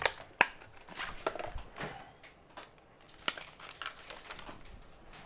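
Irregular small clicks and taps as the iPhone 7 and a swapped-out test screen are handled. The sharpest click comes right at the start and another about half a second in, then scattered lighter taps that thin out near the end.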